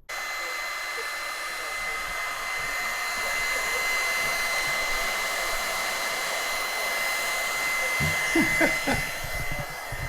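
A small motor-driven blower running steadily, a whir with a fixed high whine, starting suddenly. A few low knocks come near the end.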